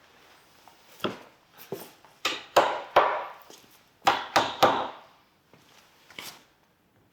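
Irregular sharp knocks on wood, about nine strikes in small groups, each ringing out briefly, the loudest clustered in the middle.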